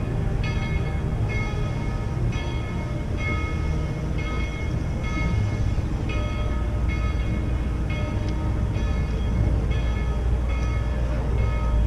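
Steam locomotive No. 190 rolling past, a low rumble, with a bell ringing about once a second.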